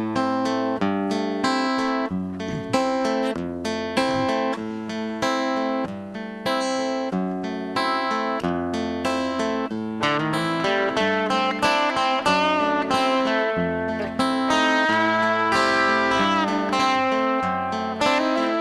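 Acoustic guitar playing an instrumental introduction, notes and chords picked in a steady rhythm that grows busier about halfway through.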